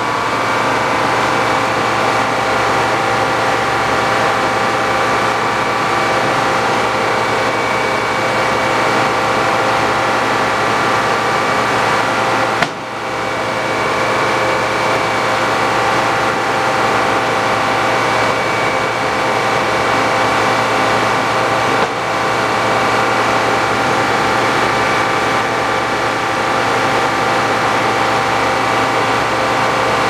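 Circular sawmill running steadily, its power unit and big blade turning without cutting, a steady hum made up of many tones. The level dips briefly twice, about 13 and 22 seconds in.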